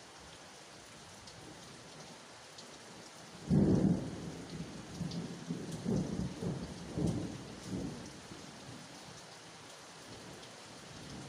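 Steady rain falling, with a sudden loud thunderclap about three and a half seconds in. It rolls on in several rumbles for about four seconds before fading back into the rain.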